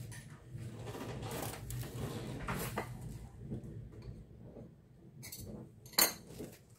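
Kitchen handling sounds: soft rustling over the first few seconds, then a single sharp clink of kitchenware about six seconds in.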